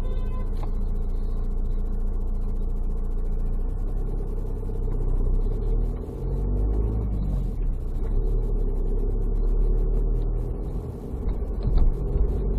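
Car driving on a road: steady engine and tyre rumble, the engine pitch rising and falling as the car speeds up and slows. A short knock sounds near the end.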